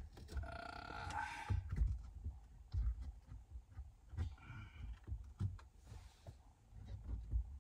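Faint irregular clicks and light knocks of a screw being tightened by hand into the dashboard mount of a Uconnect touchscreen. Two brief rasping stretches come about half a second in and again about four seconds in.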